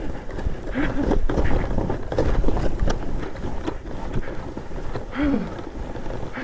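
Wind buffeting the microphone and snow rushing under a Snowracer steering sled as it runs through deep powder, with a few sharp knocks from bumps along the way.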